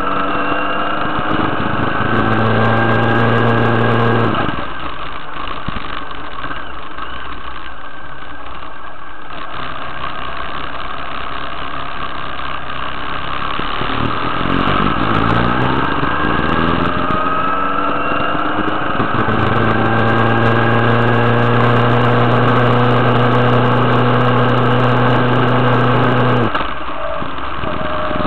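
Motorcycle engine climbing a steep winding road. The revs rise, hold steady, then drop off sharply, twice: about four seconds in and again near the end.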